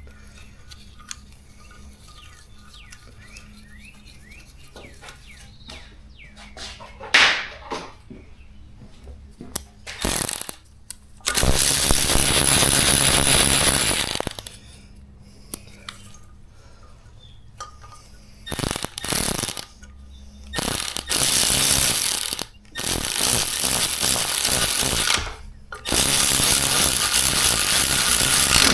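A power tool run in repeated bursts, about seven of them lasting one to three seconds each, mostly in the second half, while a valve spring installation tool is set up on an LS cylinder head.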